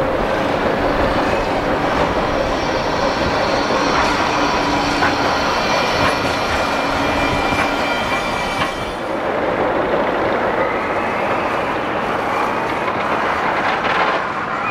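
Electric tram running on the tramway: a steady rumble with a wheel-on-rail whine and a few sharp clicks in the middle, the whine dying away about nine seconds in.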